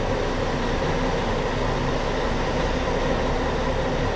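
Steady background hum with a hiss, even and unchanging throughout.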